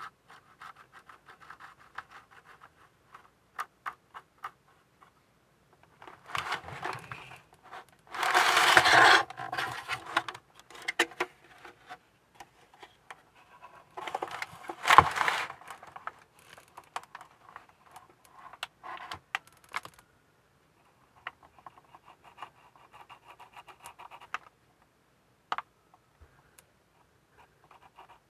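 Light scratching and tapping of a wooden toothpick dabbing liquid surfacer onto the seam of a plastic model hull. There are two louder bouts of handling noise, about eight seconds in and again about fifteen seconds in.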